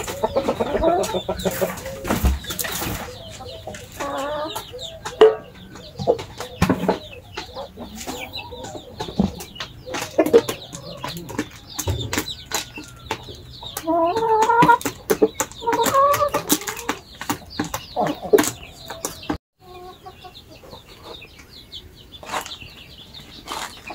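Chickens clucking, with many sharp ticks and taps among the calls and a run of louder clucks about halfway through.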